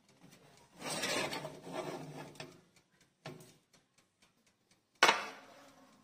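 A metal baking tray scraping as it is slid along the oven rack, a small click, then a sharp metal clack near the end, the loudest sound, as the tray is pulled out or set down.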